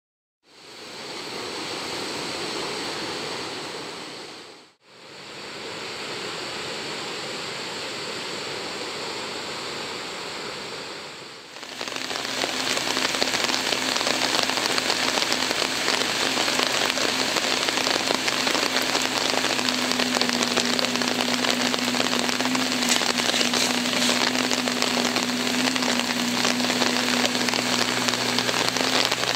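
Steady hiss of rain falling. About twelve seconds in it turns louder, with a dense patter of drops and a steady low hum underneath.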